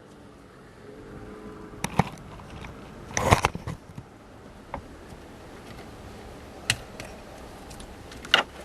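A few scattered clicks and light knocks of plastic wiring connectors being handled and pushed onto a steering-column starter switch. The loudest cluster comes about three seconds in.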